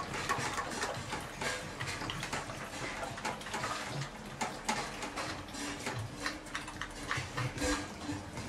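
Pocket American bully puppy eating from a stainless steel bowl, with many quick, irregular small clicks and tinks of teeth and tongue against the metal.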